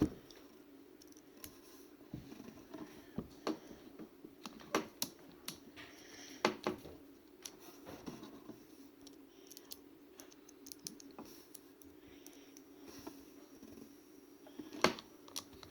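Small plastic RC-truck differential and axle parts clicking and tapping as they are handled and fitted together by hand, in scattered irregular clicks with a few sharper knocks. A faint steady hum runs underneath.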